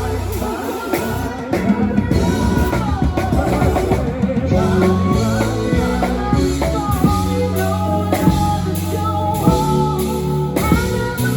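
Music: a song with drums and a steady bass line and a sung melody, no words picked out.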